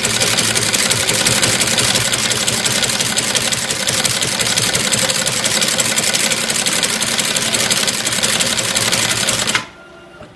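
Two-axis brush tufting machine running, its tufting head driving tufts of bristles into a wooden brush block with a rapid, steady mechanical clatter. The clatter cuts off abruptly near the end.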